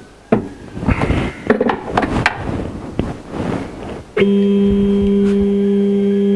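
A run of sharp knocks and taps, then about four seconds in a steady, even multi-tone whine starts abruptly: the CNC-converted X2 mini mill's X-axis stepper motor driving the table along.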